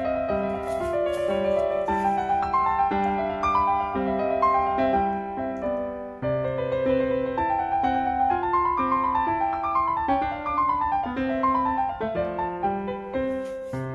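Background piano music: a melody of single notes moving over lower held notes, with a brief drop in level about six seconds in.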